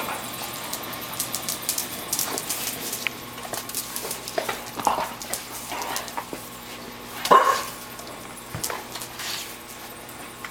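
Bull terrier and Weimaraner at play, giving a few short barks and yips, the loudest about seven seconds in, among scattered light clicks.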